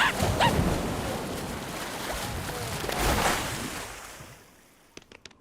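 A rushing, surf-like noise that swells about three seconds in and then fades away, followed by a few short clicks near the end.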